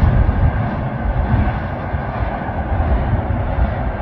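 Steady rumble of a freight train's double-stack container cars rolling past on the rails.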